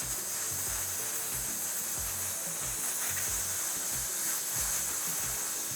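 Steady hiss of a dental air-water syringe rinsing and air-drying an etched tooth, over background music with a regular beat.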